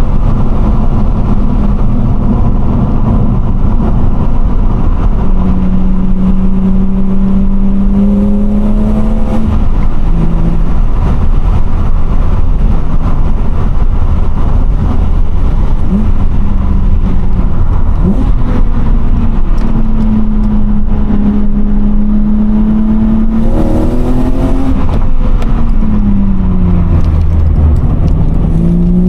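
A BMW E36 325i's M50B25 straight-six, fitted with a Supersprint race exhaust, heard from the cabin with the window down while driving: the engine note climbs under acceleration several times and drops back between pulls, over loud road and wind rumble.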